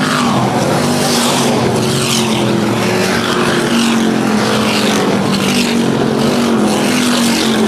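A pack of street stock race cars running hard through the turn, several engines overlapping. Cars pass close by one after another, about once a second.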